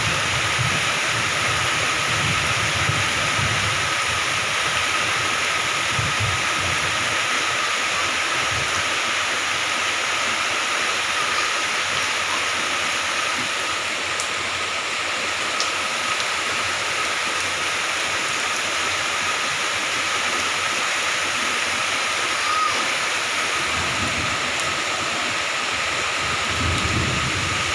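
Moderate to heavy rain falling steadily, an even hiss of downpour, with brief low rumbles near the start and again near the end.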